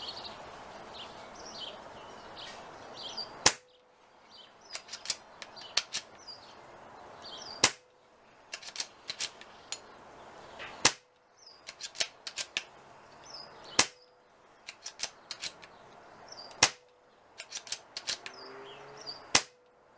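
Brocock Concept .177 pre-charged pneumatic air rifle firing six shots about three seconds apart, each a sharp crack followed by a brief low tone, with lighter clicks between the shots. The rifle is shooting about 750 feet per second, around 10.5 ft-lb, a little under full power.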